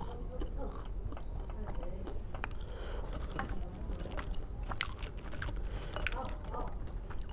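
A person chewing and biting food close to the microphone, with many short, wet mouth clicks.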